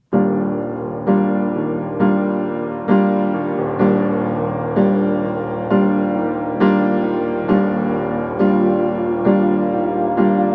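Background music: piano or electric piano playing sustained chords, a new chord struck about once a second and fading until the next.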